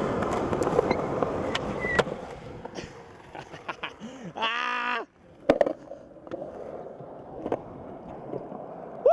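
Skateboard wheels rolling over a concrete skatepark surface, loud for the first two seconds and then fading. Sharp board clacks and impacts follow: one about two seconds in, a quick pair around five and a half seconds, and another around seven and a half seconds.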